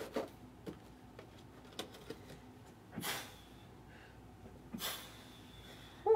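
A person breathing audibly in a quiet small room, two short noisy breaths about three and five seconds in, with a few faint clicks between them.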